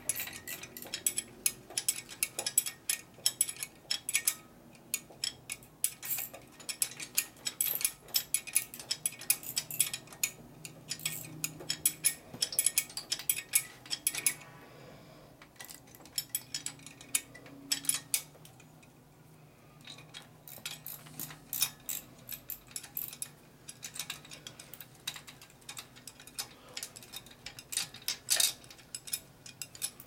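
Hand tools working on bolts: a ratchet wrench clicking quickly, with metal wrenches and sockets clinking, pausing briefly twice in the middle.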